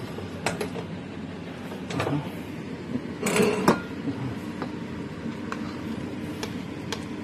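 Kitchen cookware handling over a steady low hum: a few light knocks and clatters, with the loudest rattle of utensils against dishes or the pan about three and a half seconds in.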